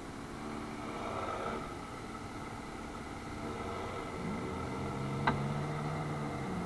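Tractor diesel engines working under load as a mud-stuck John Deere is towed out on a strap by two tractors ahead. A lower, stronger engine note comes in about four seconds in, and a single sharp click sounds a little after five seconds.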